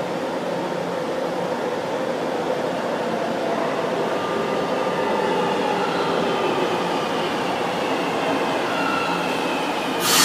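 São Paulo Metro Line 1 train pulling into an underground station: a steady rumble of wheels on rail grows louder as it nears. A faint high whine falls slightly in pitch from about halfway, and a sudden loud rush of noise comes near the end as the front of the train reaches the platform.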